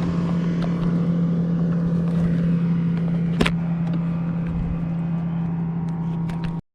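A small boat motor running steadily with a constant hum, and a single sharp click about three and a half seconds in. The sound cuts out briefly near the end.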